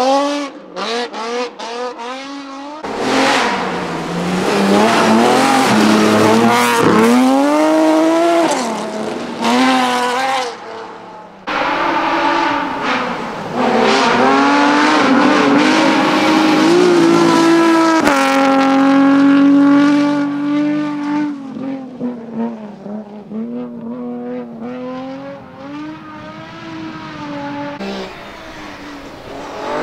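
BMW rally cars at full effort, their engines revving hard and climbing in pitch through the gears, with lifts and downshifts between. Several separate passes follow one another, quieter and lower in the last third.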